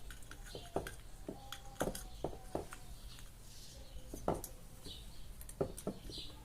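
Irregular small clicks and light knocks of electric fan motor parts and wiring being handled and fitted together, over a steady low hum.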